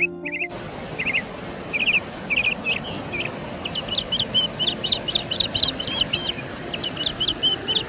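Wild birds calling in forest: scattered short high chirps, then from about halfway two quick runs of rapidly repeated high notes, over a steady background hiss.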